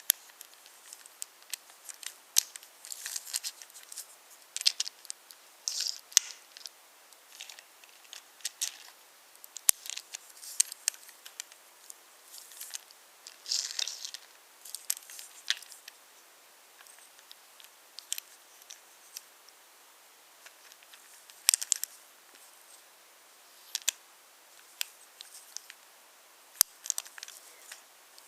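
Wooden toy train on a wooden railway: irregular sharp clicks and clacks as the wheels and cars knock over the track joints, with a few short rolling rattles.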